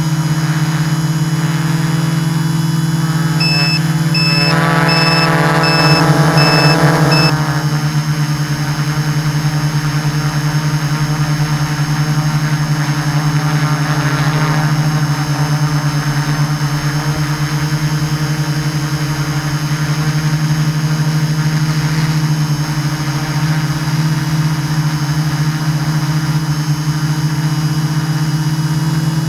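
Multirotor drone's motors and propellers buzzing steadily, heard from the drone's own onboard camera. A higher whine joins in a few seconds in and cuts off suddenly about seven seconds in.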